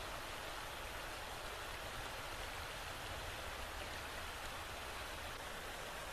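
Steady rushing of a shallow woodland stream running over stones.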